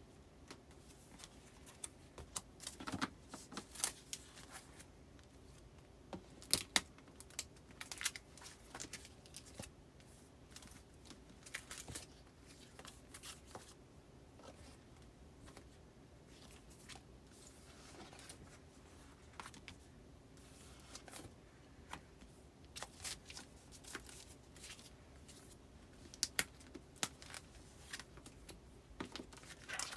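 Paper postcards and plastic file sleeves being handled: irregular rustling, crinkling and small sharp clicks as cards are slid into a binder.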